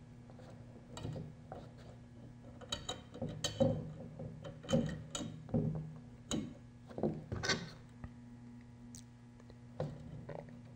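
Irregular light metallic clicks and scrapes from a small hand tool working a set screw into the metal coupling between two antenna tubes, mostly between about one and eight seconds in, over a faint steady hum.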